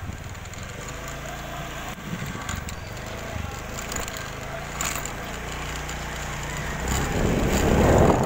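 Motorcycle engine idling with a steady low hum, with a few sharp clicks. About seven seconds in it pulls away and wind buffets the microphone.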